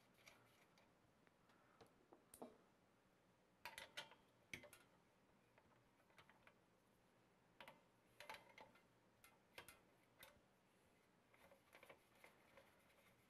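Small ratcheting wrench clicking and light metal clinks as potentiometer shaft nuts are worked loose from a record player's sheet-metal front panel. The clicks are faint and come in short irregular clusters with quiet gaps between them.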